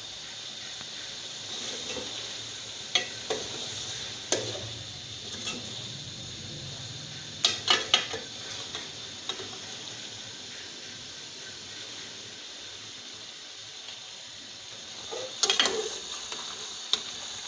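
Metal slotted spatula stirring carrots into a thick tomato masala in a stainless-steel pot, clinking and scraping against the pot now and then, over a steady low sizzle.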